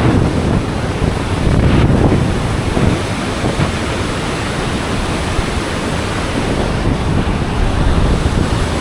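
Steady, loud roar of the Iguazú Falls' water crashing down, with wind buffeting the microphone.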